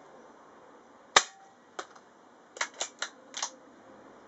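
An air rifle of about 11 ft-lb firing a pellet: one sharp shot a little over a second in, then five quieter clicks over the next two and a half seconds.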